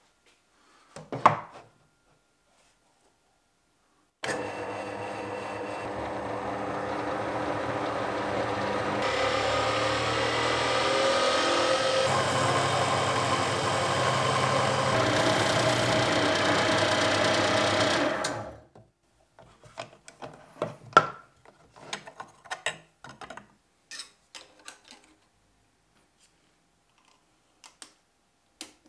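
Scheppach DP18Vario benchtop drill press running and drilling, a steady motor whine over cutting noise. It starts suddenly about four seconds in, grows louder, shifts pitch a few times, and stops about eighteen seconds in. Light clicks and knocks of handling follow.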